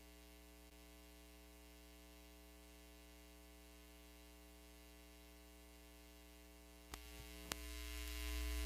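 Recording dropout: near silence with only a faint steady hum. About seven seconds in, two clicks are followed by a louder electrical mains hum as the audio feed comes back.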